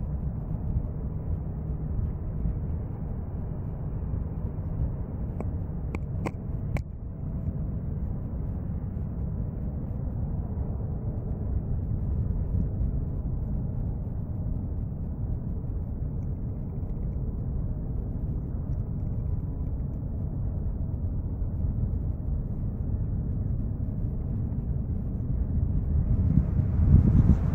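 Steady low rumble of distant airport and jet noise across an airfield, with wind buffeting the microphone. There are a few sharp clicks about six seconds in, and the rumble swells and brightens near the end.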